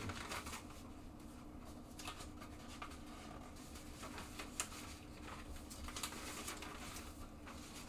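Sheets of paper being handled and flipped over, with scattered light rustles and taps over a faint steady hum.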